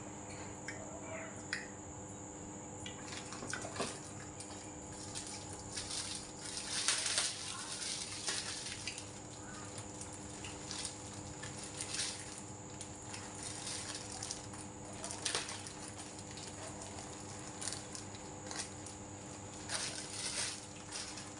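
Thin plastic bag rustling and crinkling in irregular crackles as it is handled and opened, over a steady low hum.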